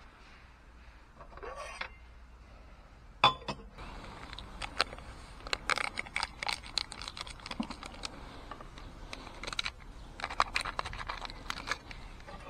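Crinkling and clicking of a small plastic packet being handled and torn open over a steel cup, after one sharp knock about three seconds in.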